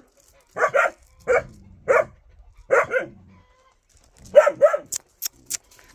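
Two large puppies barking in short, sharp barks, about eight of them singly and in pairs. A few sharp clicks come near the end.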